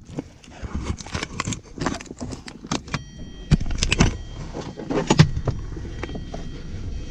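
Irregular clicks, rattles and rustles of fishing gear being handled close to the microphone, over a low wind rumble.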